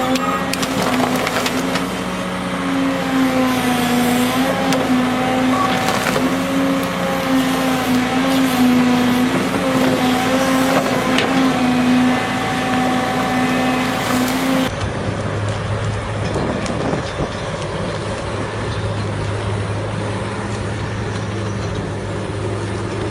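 Stump grinder's engine running hard under load, its pitch wavering as the cutter wheel chews into wood, with scattered cracks of breaking wood. About two-thirds of the way through it cuts abruptly to another engine running at a lower, steadier pitch.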